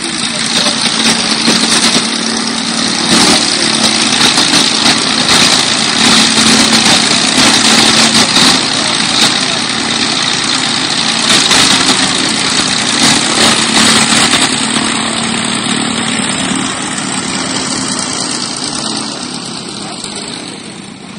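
Light aircraft's piston engine and propeller running steadily at low power close by, loud, fading away over the last few seconds.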